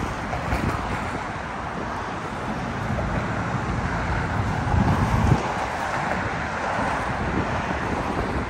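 City street noise of traffic going by, with wind buffeting the microphone in uneven gusts, strongest about five seconds in.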